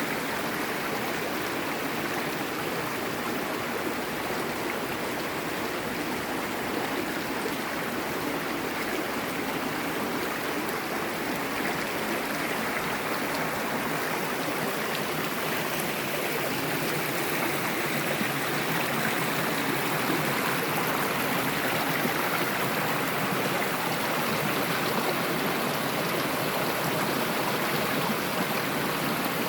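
River water rushing and splashing over rocks, a steady even rush that grows a little louder about halfway through.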